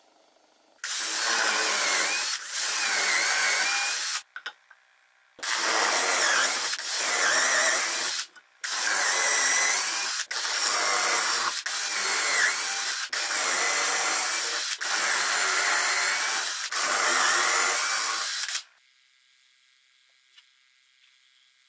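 Cordless drill boring dowel holes into a fir board through a metal-bushed doweling jig, in about ten runs of one to two seconds each with short breaks between them. Its pitch dips and recovers as the bit bites. It stops near the end, leaving near silence.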